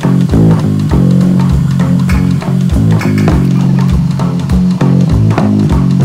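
Background music: bass guitar and plucked guitar over a steady beat.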